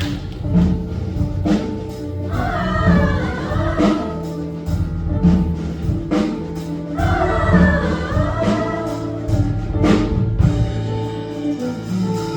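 Music with singing voices over an instrumental accompaniment with a steady beat. A sung phrase comes in about two seconds in and another about seven seconds in.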